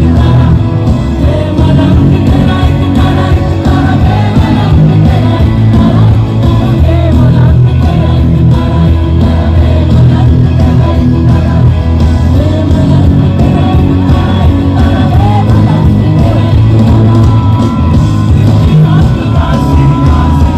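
Live band music with a singer over it, loud and continuous with a heavy bass, played through a concert sound system.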